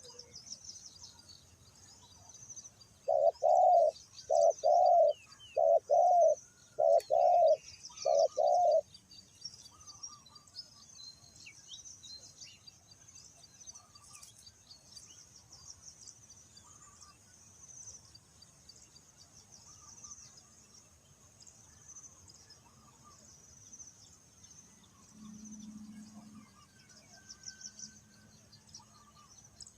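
Spotted dove cooing: a run of six short, deep coos a few seconds in, over a steady high chirring of insects.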